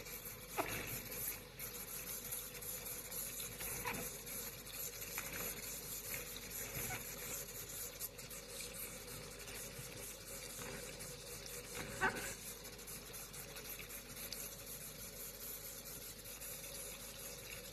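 Tap water running over a basin of fresh anchovies as hands stir and rub the fish to wash off their scales. A steady water noise with a few light knocks.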